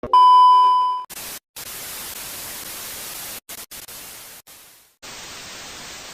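A loud steady electronic beep for about a second, then hissing static that cuts out abruptly several times.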